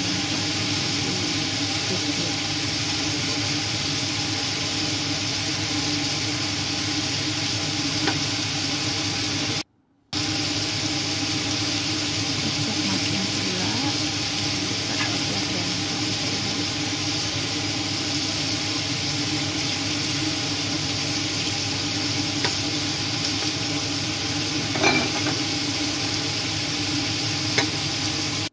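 Chicken pieces sizzling in a hot wok while a metal spatula stirs them, with a few sharp clinks of the spatula against the pan and a steady hum underneath. The sound drops out briefly about ten seconds in.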